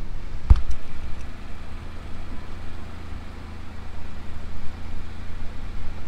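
Maruti Suzuki Alto 800's small three-cylinder engine running steadily, with a single thump about half a second in.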